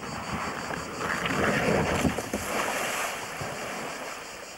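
Kayak sliding down a rock slab and splashing into a river pool: a rush of hull-on-rock and water noise swells about a second in and dies away a couple of seconds later.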